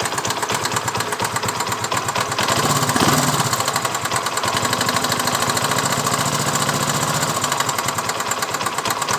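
Motorcycle engine idling with a rapid knocking, blipped once about three seconds in. The knocking is the sign of a slack cam chain, traced to the cam chain tensioner needing adjustment.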